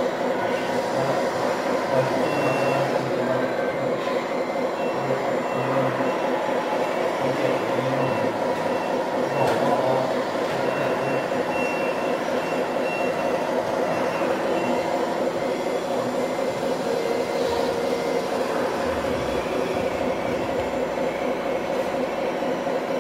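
Scale RC construction models running: a steady diesel-engine hum from their sound modules while the RC excavator works its arm, with short high beeps coming on and off through the first part.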